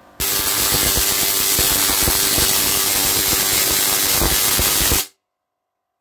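Tesla coil powered by two microwave oven transformers, fitted with an aluminium flat-bar primary coil, firing: its sparks discharge with a dense, rapid crackle over a steady buzz. It switches on suddenly just after the start and cuts off abruptly about five seconds in.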